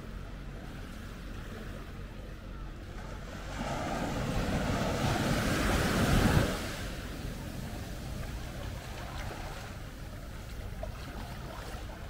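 Small waves breaking on a sandy shore: one wave builds from about three and a half seconds in, peaks near six seconds as it breaks and washes up the sand, then falls back to a low steady surf wash.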